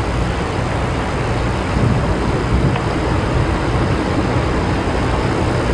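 Steady rushing noise with a low rumble underneath: aircraft engine and wind noise on an air-to-air live feed.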